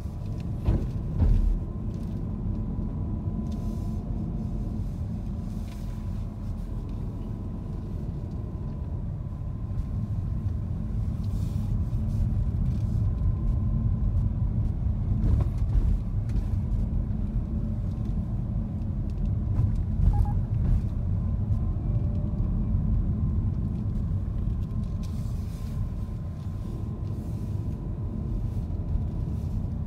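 Road noise inside a moving car: a steady low rumble of engine and tyres, with a faint steady whine and a few short knocks, the loudest about a second in.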